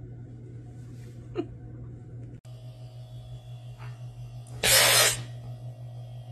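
A cat hisses once, a short noisy hiss lasting about half a second, a little over four and a half seconds in. Before it there is a steady low hum and a brief falling squeak about a second and a half in.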